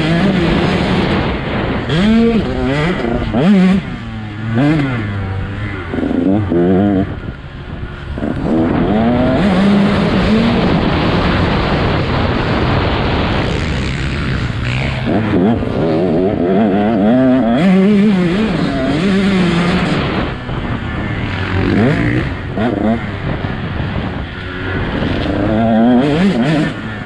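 Two-stroke enduro dirt bike being ridden hard off road. The engine note keeps rising and falling as the throttle is blipped and held and gears are changed, with short stretches of steadier, rougher running.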